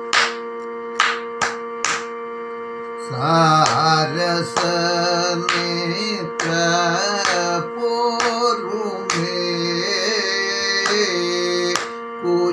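A man singing in the Kathakali style over a steady pitch drone, with gliding, ornamented notes. In the first two seconds, before the singing starts, there are four sharp hand beats marking the tala.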